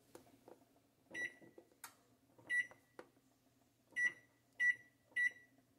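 Microwave oven keypad beeping as its buttons are pressed: five short, identical beeps, the last three in quick succession, with a couple of faint clicks between them.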